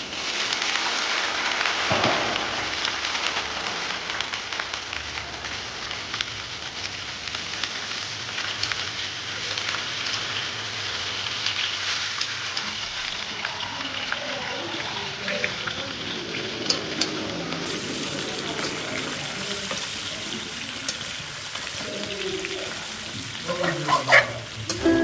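Food frying in hot oil, a steady sizzle with scattered crackles; a voice comes in near the end.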